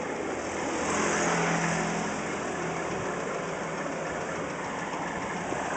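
Street traffic: a motor vehicle's engine running close by, loudest from about one to three seconds in, over a steady wash of traffic noise.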